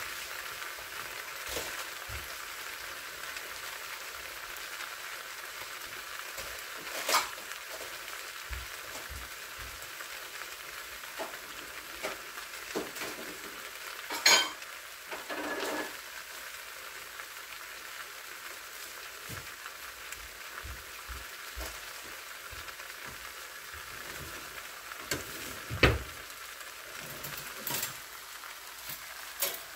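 Stir-fried sundae (Korean blood sausage) with cabbage sizzling in a frying pan on an induction hob, a steady frying hiss. A few sharp clicks stand out now and then, the loudest about 14 and 26 seconds in.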